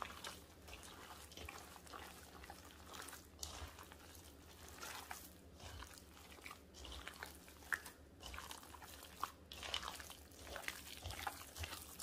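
Hands kneading raw ground turkey mixed with breadcrumbs, eggs and chopped onion and bell pepper in a stainless steel bowl. The sound is a faint, irregular wet squishing and squelching with small clicks.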